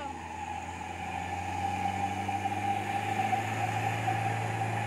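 Truck engine running steadily under load. Its low drone grows louder about two seconds in.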